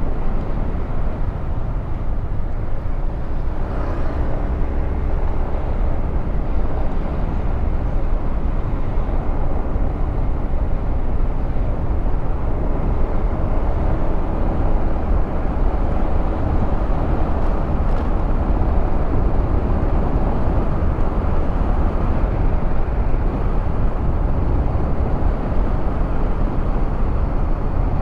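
Steady wind rush and road noise from a Honda Forza 350 scooter under way, with its single-cylinder engine running underneath. The loudness holds even throughout.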